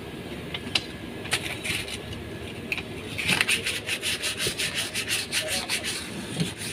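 Hand scrubbing of a Mitsubishi Pajero's front steering knuckle hub bore as it is cleaned for a new wheel hub bearing. A few light clicks come first, then a quick back-and-forth scraping rub at about six strokes a second from about halfway in.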